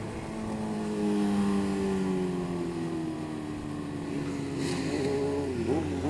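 Motorcycle engine running on the move, its note easing slowly lower in pitch, then rising and falling a few times near the end with small throttle changes.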